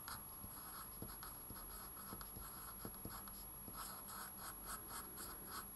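A pencil writing on paper: faint scratchy strokes, coming quicker and closer together in the second half.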